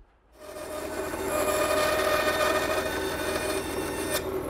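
Band saw running and cutting a curve through a wooden board, starting about half a second in: a steady motor hum and blade whine, with a sharp click near the end.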